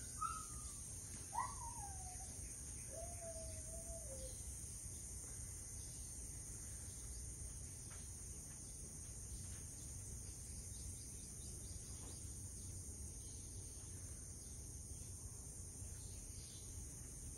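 Steady high-pitched insect chorus, with a few short whistled bird calls in the first four seconds, each sliding down in pitch. Now and then a faint click from a kitten eating out of a stainless-steel bowl.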